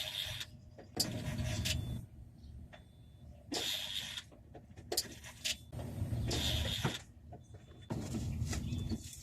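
A car that won't start makes a mechanical noise in repeated short bursts, about a second each, five or so times with brief gaps between them.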